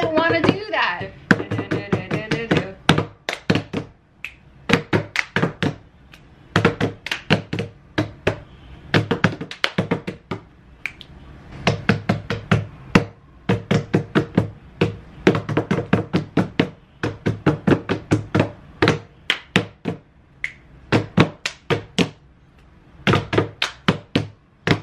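Two people slapping their palms on a wooden tabletop and clapping their hands together in a fast rhythmic hand-clap routine, in runs of quick strikes broken by short pauses.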